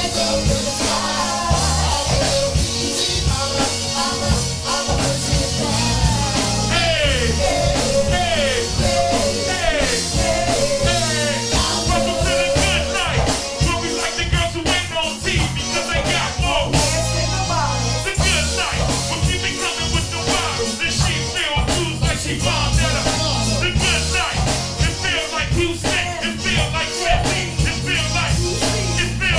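Background rock music with singing and a steady beat.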